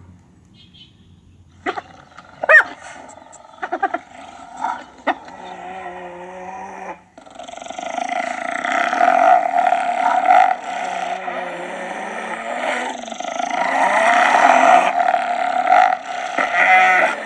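Hyenas calling: a few short separate calls in the first seconds, one of them sliding up and down. From about seven seconds a dense, continuous chorus of several hyenas calling over one another takes over.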